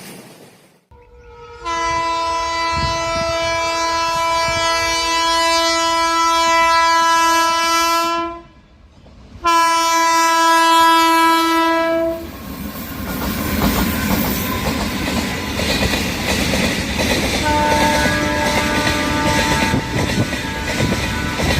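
A locomotive air horn sounds two long blasts, the first about six seconds long and the second about three. A passing train then rumbles, with the clickety-clack of wheels over rail joints and a fainter horn-like tone near the end.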